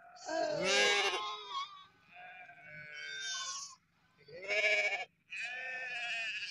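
Sheep and lambs of a flock bleating, about four calls in quick succession with several voices overlapping. The loudest calls come near the start and just past the middle.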